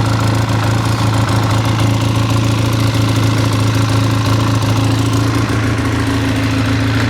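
Polaris Sportsman 600 ATV engine running steadily at a high idle, a fault the owner has not yet tracked down.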